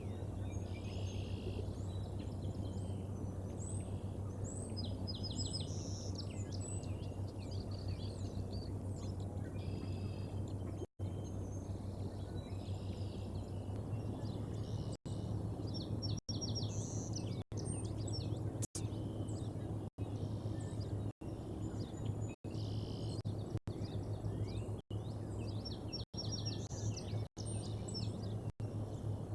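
Small birds singing and chirping in short trills and calls over a steady low hum and hiss from an outdoor nest-cam microphone. In the second half the sound cuts out briefly about once every second or so.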